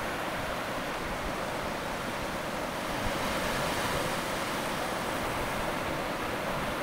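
Steady rushing noise of bubbling water, even and unbroken.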